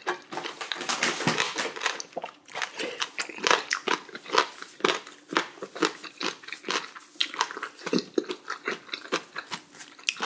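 Close-miked chewing of a mouthful of spicy beef small-intestine hot pot: a steady run of wet, sticky mouth smacks and clicks, several a second.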